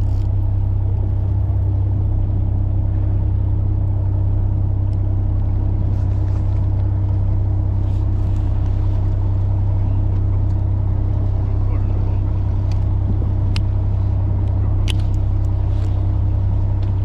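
Fishing boat's engine running with a steady low drone, with a few sharp clicks here and there.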